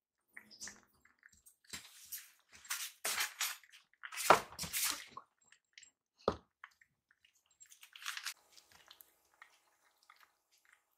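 Kittens eating from ceramic food bowls: chewing and lapping noises in short bursts, loudest about four seconds in. A sharp knock about six seconds in comes as a bowl is moved.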